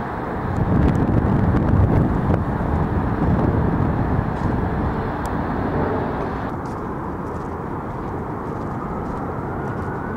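Steady rumble of distant vehicle or aircraft engines, swelling during the first few seconds, with a faint rising whine toward the end.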